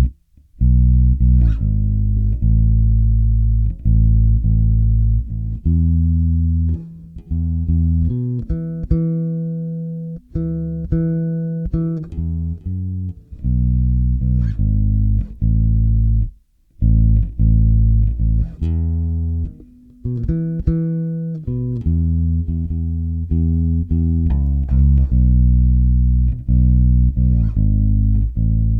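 Electric bass, a Sterling by Music Man Ray4 with a Bartolini pickup, played unaccompanied through a Tone Monster SBK-3D active preamp with bass and treble fully boosted and mids at half. It plays a line of plucked, ringing low notes with a click on each attack, and stops briefly a little past halfway.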